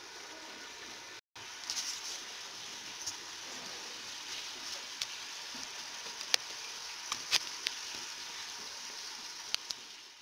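Chicken pieces frying in oil with garam masala and curry leaves in a pressure-cooker pot: a steady sizzle with scattered pops and crackles, breaking off for an instant about a second in.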